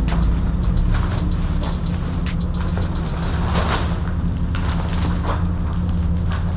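Jeep's engine running steadily, with scattered short clicks and rattles over it.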